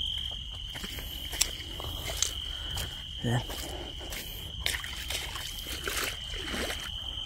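Night insects trilling steadily on one high, unbroken note, with a few short clicks and scuffs scattered through.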